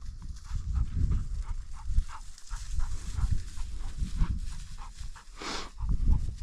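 A German shorthaired pointer panting and sniffing as it searches cover for a downed bird. A louder huff comes about five and a half seconds in.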